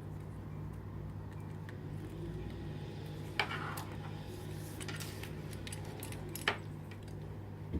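Metal bridle buckles and bit rings clinking and clicking as leather cheek pieces are buckled onto the bit, with two sharper clicks, a little after three seconds and about six and a half seconds in. A steady low hum runs underneath.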